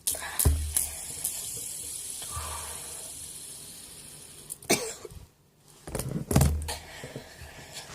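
Fidget spinner spinning and rubbing against skin: a high whirring hiss that fades away over about four seconds, with knocks and thuds from handling it, loudest about half a second in and about six seconds in.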